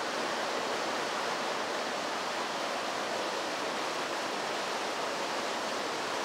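Pumped groundwater pouring steadily from a pump station outfall into the river, a continuous rush of falling water.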